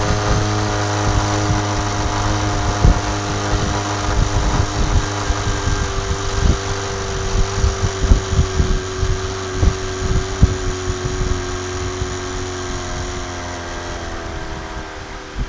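Outboard motor running at cruising speed, pushing an aluminium jon boat, with irregular thumps of the hull on the water. The motor fades near the end.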